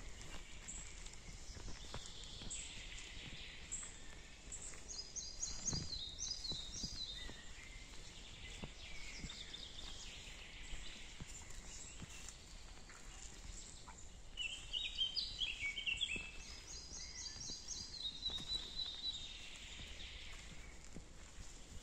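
Songbirds singing in woodland, with phrases of quick repeated high notes coming and going, over faint footsteps on a forest path.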